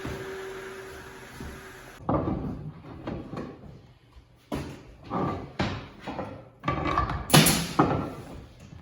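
A steady hiss with a faint hum, cut off abruptly about two seconds in, followed by a string of irregular sharp knocks and bangs, the loudest about seven seconds in.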